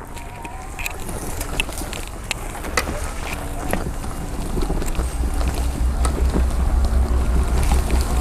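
Magic Mobility Frontier V4 power chair's twin 800-watt motors whining as it drives over grass and roots. Scattered clicks and crackles from under the tyres come through, with a low wind rumble on the microphone that gets louder from about halfway.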